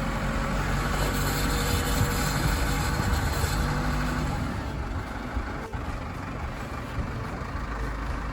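Case 580 Super N backhoe's diesel engine running, louder for the first few seconds, then easing down toward idle about five seconds in. A single sharp click comes just before the six-second mark.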